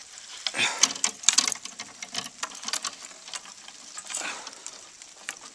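14-gauge steel wire being wrapped and twisted around a log by hand to anchor a trap, giving irregular small clicks and scrapes of wire on wood and metal.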